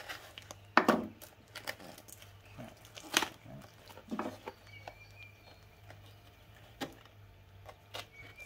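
Utility knife cutting through the packing tape on a cardboard box: scattered short scrapes and taps, the sharpest about one and three seconds in.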